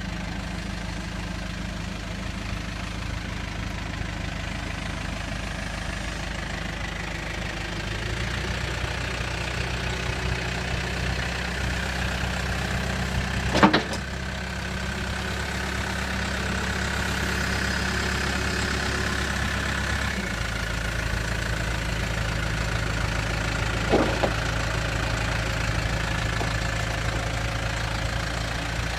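Diesel engine of a 2008 Case 580 Super M 4x4 backhoe running during a machine demonstration, its steady note shifting twice as the machine is worked. Two sharp clanks stand out, one about fourteen seconds in and a fainter one about ten seconds later.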